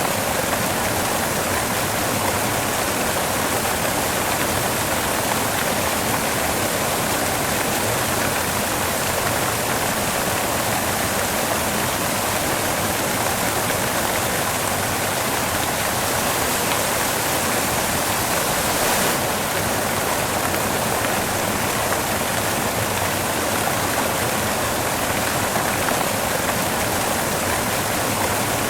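Steady white noise: an even, unchanging hiss with no rhythm or events, stronger in the upper range than the bass.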